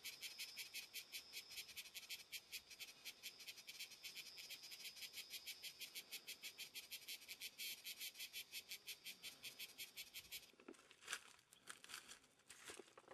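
Faint, high-pitched, rapidly pulsing chirp of a calling insect, about seven even pulses a second, which stops abruptly near the end. A few soft scrapes and rustles follow.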